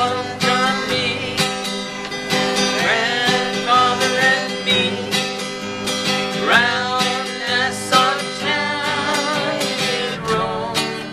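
Acoustic guitar strummed in a steady rhythm, with a voice singing a country-style tune over it.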